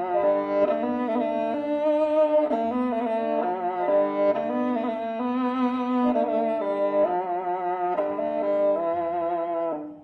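Kobyz (qyl-kobyz), the Kazakh two-string bowed fiddle with horsehair strings, played solo. It bows a melody of notes that change every half second or so, with a rich, buzzing tone.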